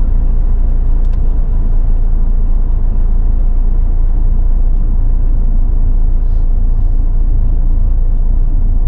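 Renault Master motorhome driving along a paved road, heard from inside the cab: a steady, loud low rumble of engine and tyre noise.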